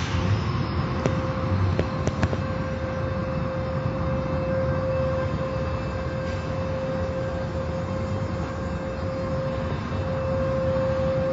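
Car wash equipment running: a constant rushing noise with a steady whine held throughout, and a few sharp clicks in the first couple of seconds.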